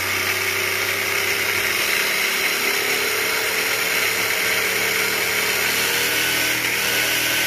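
Hobbywing Max10 brushless motor of a 1:8 RC monster truck on a 4S LiPo battery, spinning the wheels freely in the air with the truck held up on a block: a steady electric whine with gear and drivetrain noise, at about sixty percent throttle.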